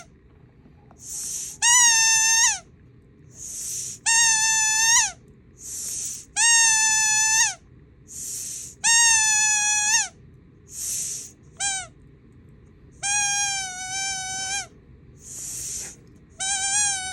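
Squeaky toy ball with holes punched in it, squeezed over and over: about every two and a half seconds it gives a hooting squeak of about a second, held at one pitch and dropping at the end, and most squeaks come just after a short airy hiss. The holes give the toy its odd, weird noise.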